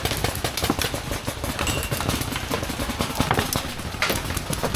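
Footsteps of a player moving quickly over rough ground, an irregular patter of crunching steps and knocks.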